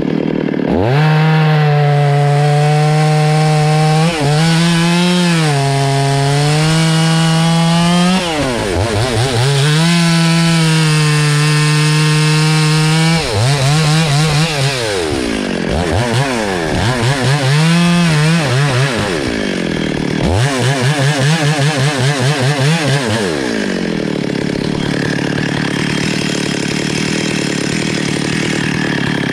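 Two-stroke chainsaw cutting through a rain tree trunk, the engine held at high revs under load with brief dips. Midway its pitch rises and falls several times as the saw works through the cut, and near the end it runs on as a rougher sound without a clear pitch.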